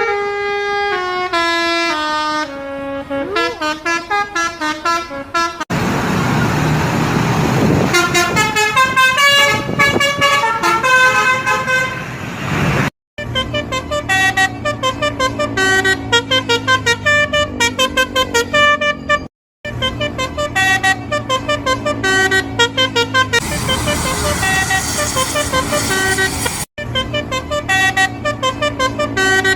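Multi-tone 'telolet basuri' bus horns playing quick melodic runs of stepped notes, several tunes one after another with abrupt cuts between them. A rushing noise lies under the horns for a stretch in the middle and again near the end.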